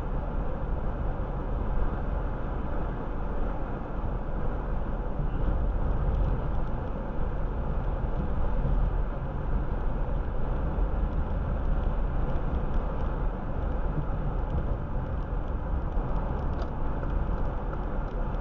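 Car cruising steadily at about 30 mph, heard from inside the cabin: a steady rush of road and tyre noise with the engine running underneath.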